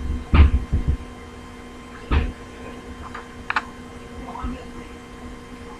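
Handling noise from working on a small model helicopter: a few scattered knocks and clicks, the loudest about half a second in, over a faint steady hum.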